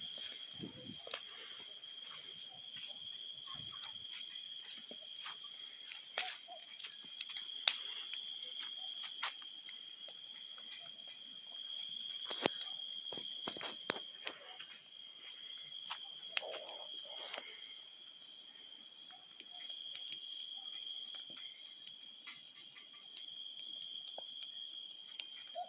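Insects trilling steadily as a continuous high-pitched drone, with scattered sharp pops and crackles from the burning wood of a bonfire.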